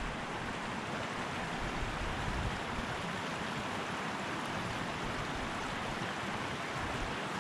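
Steady rush of running creek water.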